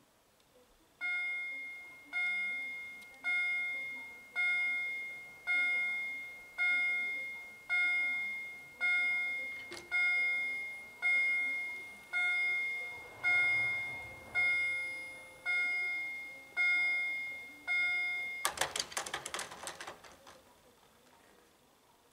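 Level-crossing warning bell of a Scheidt & Bachmann BUES 2000 crossing installation, striking a ringing tone about once a second while the barriers lower for an approaching train. Near the end it breaks into a rapid clatter of strikes for about a second and a half, then stops.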